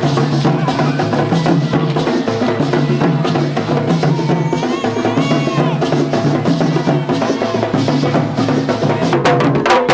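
Traditional folk music played by an ensemble, with pitched instruments over steady percussion of sharp, wood-block-like strikes; the strikes come thick and quick near the end.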